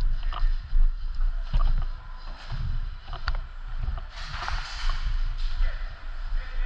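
Low rumbling wind and movement noise on the microphone, with scattered sharp clicks and a brief hissing rustle about four seconds in.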